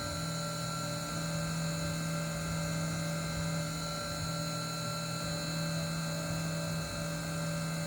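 CNC milling machine's spindle running steadily while engraving, a constant hum with a steady high tone over it.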